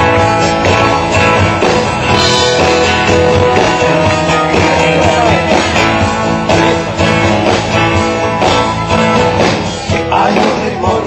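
Live rock band playing a loud, steady instrumental passage led by guitar, with regular drum hits and no singing.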